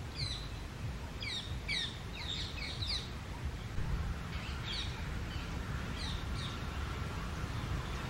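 Rose-ringed parakeet calling: short calls that each slide down in pitch, in a quick run through the first three seconds, then a few more around five to six seconds in, over a steady low rumble.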